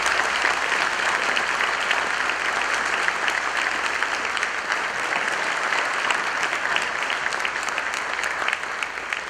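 Congregation applauding: a steady wash of many hands clapping, easing off near the end.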